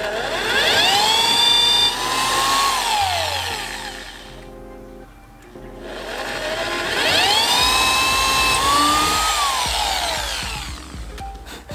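Corded electric drill boring into a canoe's wooden gunwale, run twice. Each time the motor whine climbs in pitch as it speeds up, holds steady while drilling, then falls away as the trigger is released.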